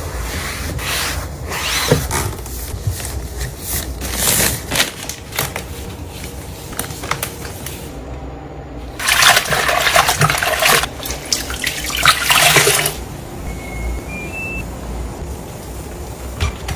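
Household cleaning noises: scattered knocks and clatter, then water rushing loudly for about four seconds, followed by three short beeps rising in pitch.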